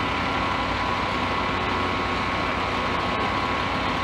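Diesel engine of a fire apparatus idling, a continuous low rumble with a steady whine over it.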